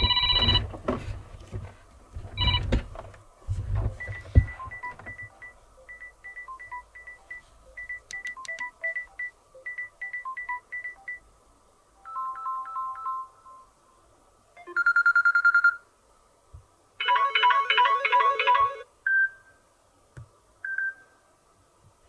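Samsung Galaxy A13's built-in ringtones played one after another, each a few seconds long. One is a long string of short, high electronic beeps in repeating groups; the others are brief electronic chime and melody snippets with short gaps between them.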